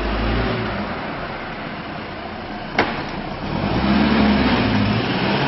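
A car engine running, growing louder about four seconds in, with a single sharp click a little before the middle.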